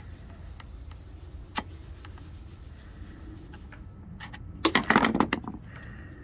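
Leftover masking tape being scraped and rubbed off a sailboat hull: a single sharp click about one and a half seconds in, then about a second of loud, quick scraping strokes near the end.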